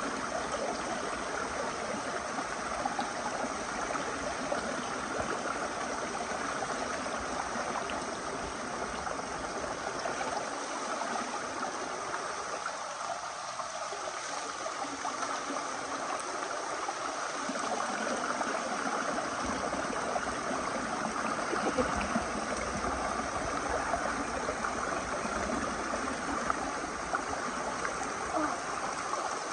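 Small river stream spilling over a rock cascade into a pool: a steady rush of running water.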